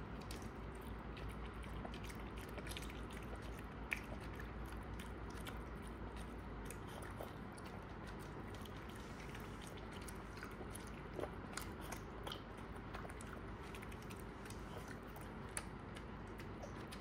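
A small curly-coated dog eating diced chicken and carrot from a plate: soft chewing and mouthing of the food, with scattered sharp clicks, the loudest about four seconds in.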